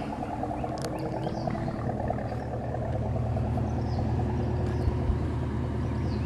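A 2019 Chevrolet Camaro SS's V8, exhaust open through a muffler delete, idling with a steady low rumble.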